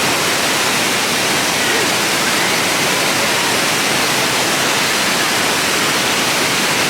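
Waterfall rushing: a steady wash of falling water with no breaks.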